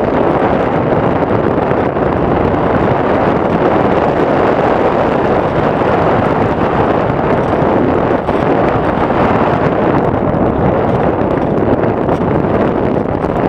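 Steady rush of airflow buffeting the microphone of a camera riding on a Radian RC glider in flight.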